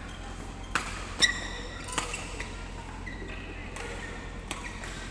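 Badminton rackets striking shuttlecocks: several sharp hits, the loudest a little over a second in, with short high squeaks of sneakers on the court mat.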